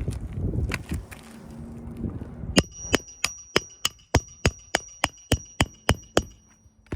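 Hammer driving a roofing nail into asphalt shingles: a quick, even run of about thirteen blows, roughly three a second, starting a couple of seconds in, with a high metallic ring over the strikes. Before the blows there is some wind noise on the microphone.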